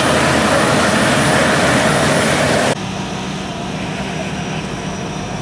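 Toyota Land Cruiser SUV's engine running hard and loud while the vehicle is stuck in deep mud. About two and a half seconds in, the sound cuts to a quieter, steady engine running, with a low hum.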